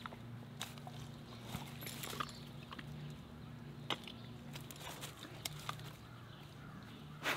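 German Shepherd moving about on dry leaves, twigs and bark mulch: scattered light crunches and rustles from its paws and muzzle over a faint steady low hum.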